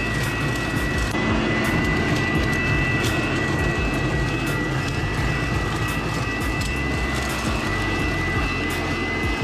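WORX WG512 Trivac electric leaf vacuum-mulcher running at its highest speed in vacuum mode: a steady high whine over rushing air, with scattered ticks and clicks as leaves are sucked in and shredded by its metal mulching impeller.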